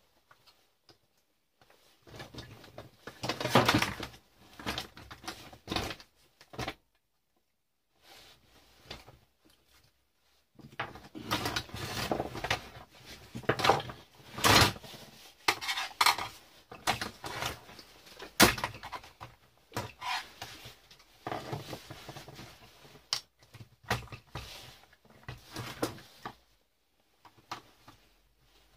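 Irregular clicks, knocks and clatter of metal and plastic parts being handled as a fuse box is taken apart, its circuit breakers and metal mounting plate shifted about on a workbench. There are a couple of sharper knocks midway.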